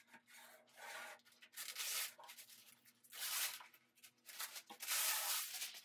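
Static-cling window film being worked onto glass: the film's backing is peeled away, and a squeegee rubs across the film in about four strokes, the longest near the end.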